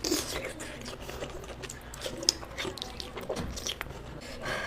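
Close-miked chewing, with wet mouth smacks and many small irregular clicks from eating soft food.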